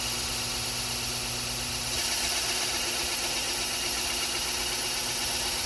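Drill press motor running steadily while a large bit bores down into a wooden log, with a constant hum and a hissy cutting noise. The sound steps up slightly about two seconds in.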